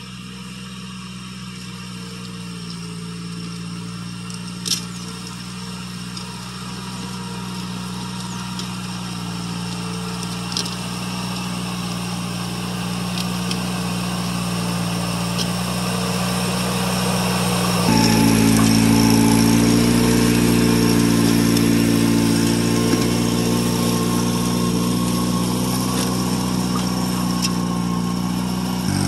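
Satoh S650G tractor's four-cylinder engine running steadily under load as it pulls a disc harrow through dry soil. It grows louder as it comes closer and jumps louder about eighteen seconds in. There is a sharp knock about five seconds in and a few fainter ones later.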